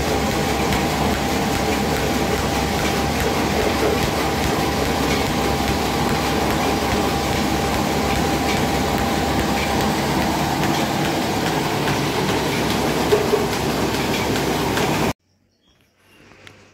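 Commercial flour and spice mill driven by a 7.5 kW three-phase electric induction motor, running with a loud, steady mechanical noise and a faint steady tone through it. The sound cuts off suddenly about fifteen seconds in.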